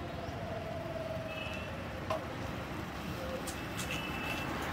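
A motor scooter running as it rides up and slows, over a steady hum of street traffic, with a single click about two seconds in.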